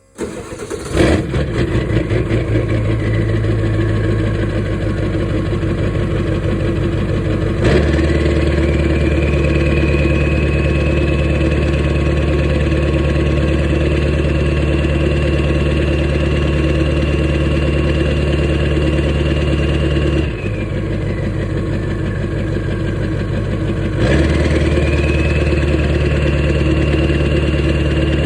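Ford 7.3L Power Stroke turbo-diesel V8 running with a high turbocharger whistle over the engine note. About eight seconds in the engine speed steps up and the whistle climbs and holds steady. Near twenty seconds the engine drops back toward idle and the whistle falls away, then the engine steps up again and the whistle climbs once more.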